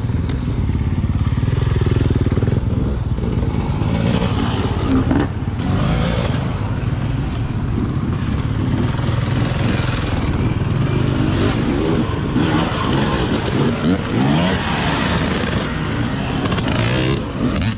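Dirt bike engine running close to a helmet-mounted microphone, its pitch rising and falling with the throttle as the bike rides over rocky trail, under a steady rushing noise.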